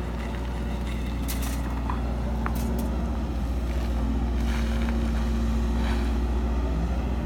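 Tracked excavator's diesel engine running steadily under hydraulic load as the machine swings and dumps a bucket of soil, with a few short knocks in the first three seconds. The sound of soil spilling from the bucket comes in the second half.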